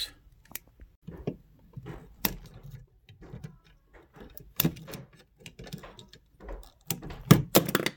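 Wire strippers cutting through the old outlet's black and white copper wires: scattered sharp snips and clicks, with small rattles from the handled wires and receptacle, the loudest snaps near the end.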